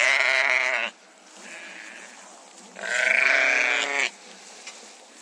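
Sheep bleating: a loud baa lasting about a second at the start, a fainter one shortly after, and another loud baa of about a second near the three-second mark.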